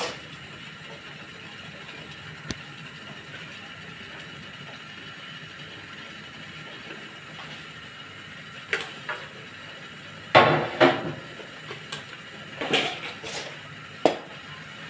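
Metal kitchen bowls and utensils knocking and clattering as they are handled and set down, a string of sharp knocks loudest about ten seconds in. Before that there is only steady background noise.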